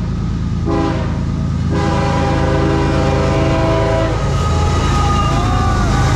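CSX freight locomotive's air horn sounding a short blast, then a long blast that stops about four seconds in: the closing short-and-long of the grade-crossing signal. Under it the diesel locomotive rumbles as it passes.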